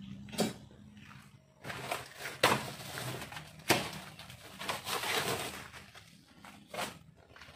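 A large cardboard box being opened by hand: flaps pulled back and paper rustling, with a few sharp knocks of handling the carton.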